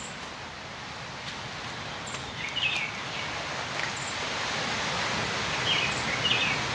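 Steady rushing outdoor background noise with a few short bird chirps, about two and a half seconds in and twice near the end.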